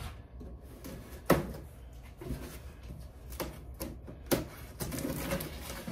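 Handling a large cardboard shipping box and slitting its packing tape with a blade: a sharp knock about a second in, a few lighter taps on the cardboard, and a scratchy cutting sound near the end.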